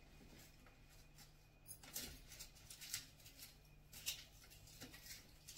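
Faint rustling and a few light clicks and taps as a cloth and hands wipe the baskets of a plastic vegetable rack.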